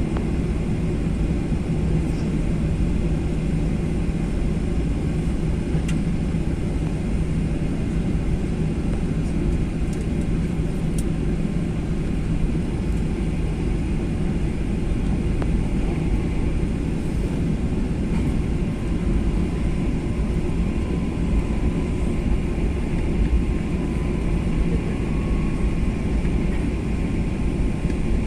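Boeing 737-800 cabin noise at takeoff: a steady, deep jet-engine rumble from the CFM56 engines at takeoff thrust, unchanged through the end of the ground run and the climb-out. A faint high steady tone joins in the second half.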